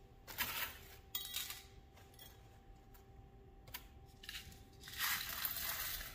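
Small pieces of glass frit clinking and rattling as they are picked out of a plastic cup and dropped into a heart mold. The sound comes in several short clattering bursts, the loudest about five seconds in.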